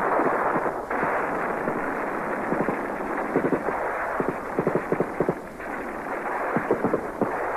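Battle gunfire on an old, muffled film soundtrack: a continuous din of shooting, with rapid bursts of automatic fire from a belt-fed machine gun in several short volleys from about three seconds in.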